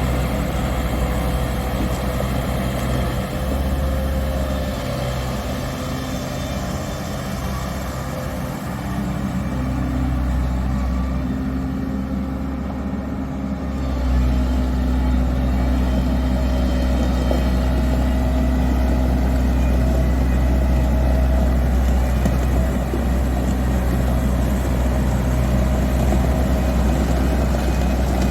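Komatsu PW110 wheeled excavator's diesel engine running steadily, with its low engine note growing louder about halfway through.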